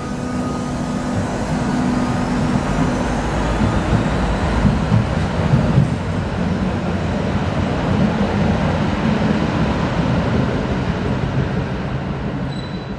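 Duewag GT10NC-DU tram pulling away from an underground platform and running off into the tunnel: a steady, loud rumble of motors and wheels on rail that stays strong as the tram recedes, in a hard-walled underground station.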